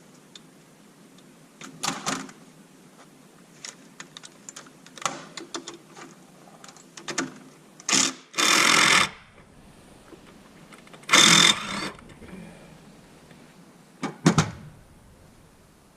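Workshop clatter of tools and metal parts, with a few short bursts of a power driver running, the longest about a second long.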